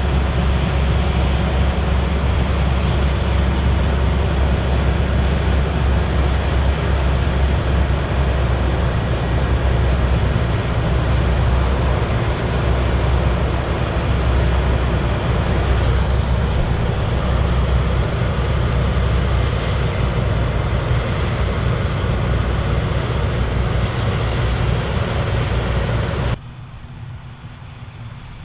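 Claas Lexion 780TT combine harvester running steadily while harvesting: a dense, even drone of engine and threshing machinery with strong low rumble. About two seconds before the end it drops suddenly to a much quieter level.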